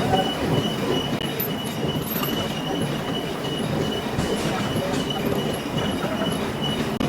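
Metal-cutting lathe running: a steady dense mechanical noise with a thin, steady high whine through it.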